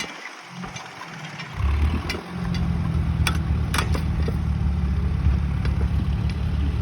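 Tractor engine running steadily with a low rumble, quieter for the first second and a half, with two sharp clicks past the middle.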